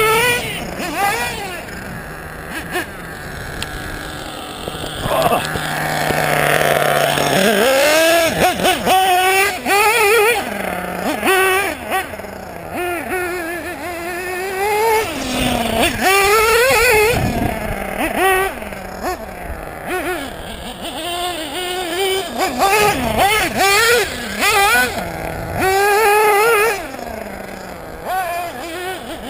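Small nitro engine of a 1/8-scale Team Associated RC8 buggy (LRP ZR.30) revving up and down over and over as the buggy is driven, its whine rising and falling in short bursts. About five seconds in it holds a steadier pitch for a couple of seconds.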